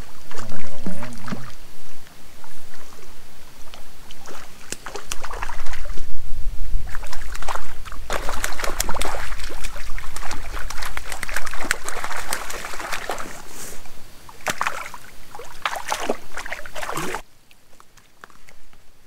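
A hooked brook trout thrashing and splashing at the water's surface as it is fought on a fly rod. There are repeated splashes over a low rumble on the microphone, and the sound cuts off abruptly near the end.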